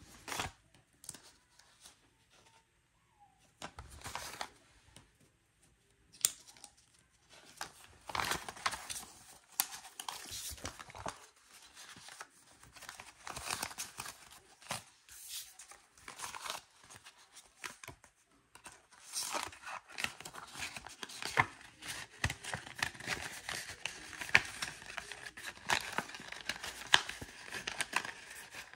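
Paper rustling and crinkling as banknotes and paper envelopes are handled and stuffed, in irregular crackles that are sparse for the first few seconds and almost continuous from about eight seconds in.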